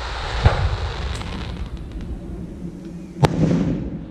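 Aerial firework shells bursting: one bang about half a second in and a louder one a little after three seconds, each followed by a rolling echo, with a few faint pops between.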